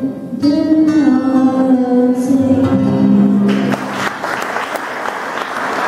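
A young girl's voice singing long held notes over a strummed acoustic guitar, the song ending; about three and a half seconds in, audience applause takes over.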